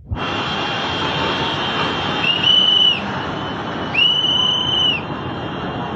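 Steady rushing noise of floodwater, with three long whistle blasts over it, each just under a second long and spaced about two seconds apart.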